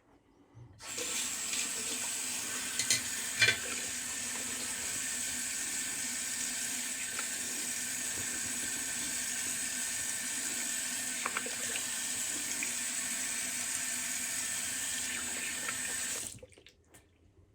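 Bathroom water tap turned on and running in a steady stream into the sink for about fifteen seconds, with a couple of brief knocks a few seconds in, then shut off.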